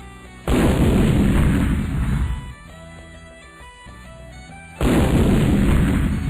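Battle sound effect played twice, each a burst of about two seconds that ends sharply, over background music.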